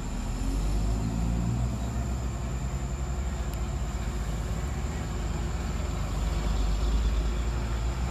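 Diesel engine of a Hyundai dump truck running as the truck drives slowly closer. Its low engine note swells a little near the end.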